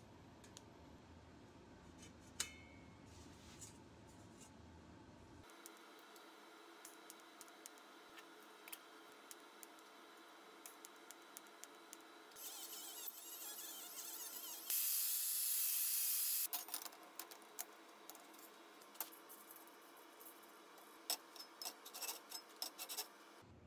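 Light metallic clicks and taps of stainless-steel sheet parts and locking clamps being handled on a steel welding table. Near the middle, a welding arc hisses for a few seconds, rising and then loudest for about two seconds.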